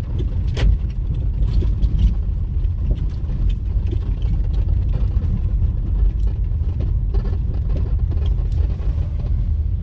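Steady low rumble of a moving car heard from inside, with scattered light knocks and rattles.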